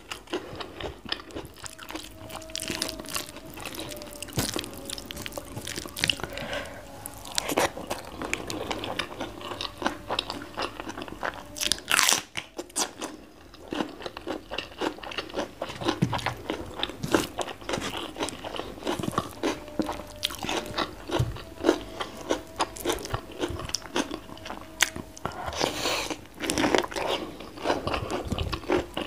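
Close-miked crunching and chewing of raw vegetables, bitter melon and green eggplant dipped in sambal, with many crisp bites and one especially loud bite about twelve seconds in.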